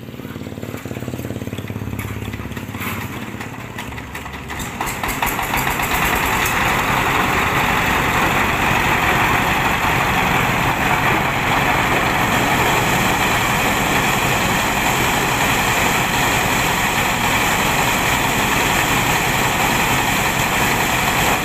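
Single-cylinder diesel engine of a mobile rice huller, just hand-crank started, idling, then speeding up about five seconds in. It runs loud and steady from then on, driving the huller.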